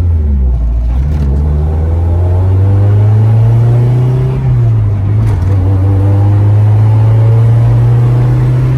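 Honda Civic's B16A engine pulling under acceleration during a drive: its pitch climbs, dips briefly about four and a half seconds in at a gear change, then climbs again.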